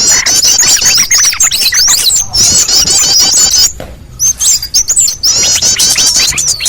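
Small-bird lure call: many small birds chirping fast and high at once in an unbroken tangle, with a brief lull about four seconds in.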